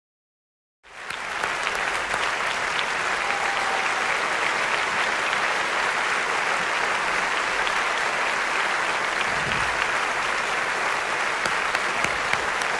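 A large theatre audience applauding, a dense, steady wash of clapping that rises in quickly from silence about a second in.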